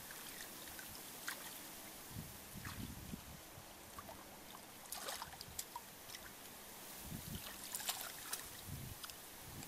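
Faint wet squelches and small splashes of bare feet and hands working through shallow mud and water, with scattered sharp clicks and a few low thumps.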